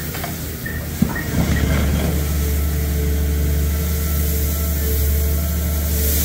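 Excavator engine and hydraulics running steadily as an orange-peel scrap grapple bites into a pile of metal turnings. There is a sharp clank about a second in, then about a second of crunching rattle as the claws close through the shavings, and the machine's low drone grows louder as the load is lifted.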